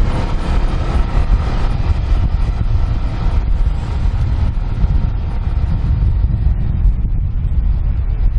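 Wind buffeting the microphone of a camera moving along with the riders, heard as a loud, uneven low rumble mixed with road noise.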